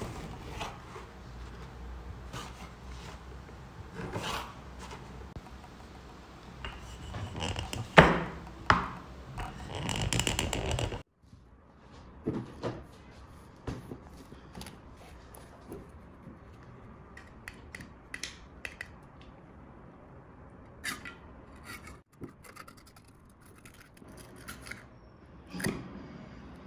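A serrated knife sawing the crusts off white sandwich bread on a wooden cutting board: repeated scraping strokes, with one sharp knock of the blade on the board about 8 seconds in. It stops suddenly about 11 seconds in, and quieter handling of a glass jar follows: a plastic lid being unscrewed, then scratchy clicks as the foil seal is picked at and peeled.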